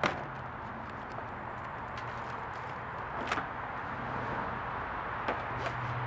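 Handling noise from fitting a kayak seat's straps and clips against the plastic hull: a few sharp clicks, the loudest right at the start, others about three and five seconds in, over a steady hiss and low hum.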